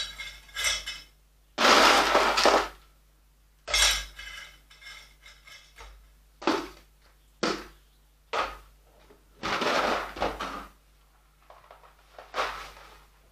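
Coarse drainage granules scooped and poured into a glazed ceramic bonsai pot, clattering against the pot in about seven short pours with brief pauses between.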